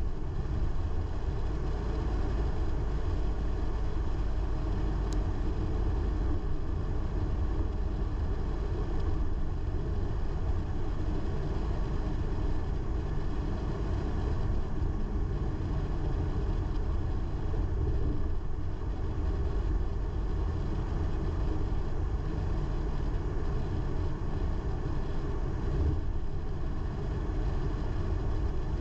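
A car driving steadily: a continuous low rumble of engine and road noise.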